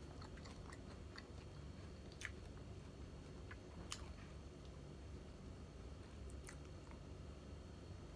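Faint close-up chewing and mouth clicks from a person eating fried tilapia by hand, a few sharp smacks standing out, the loudest about two and four seconds in, over a low steady hum.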